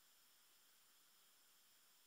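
Near silence: a faint, steady hiss with no other sound.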